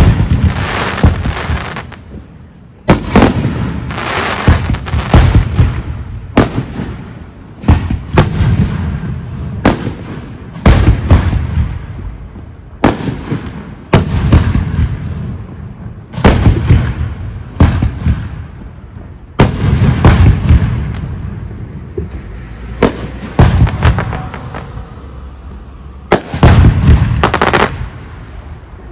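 Aerial firework shells from a professional display bursting in quick succession: a sharp bang every second or two, some close together, each followed by a rolling, fading tail.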